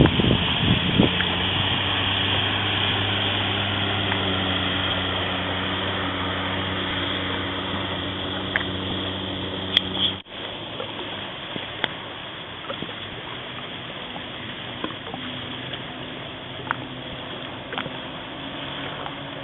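Jet ski engine running steadily at low speed amid water noise; about halfway through the engine sound cuts off abruptly, leaving quieter water sounds with scattered small ticks.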